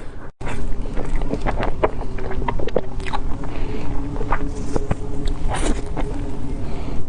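Close-miked chewing of soft, sticky mochi: irregular wet mouth clicks and smacks over a low rumble, starting after a brief cut-out about a third of a second in.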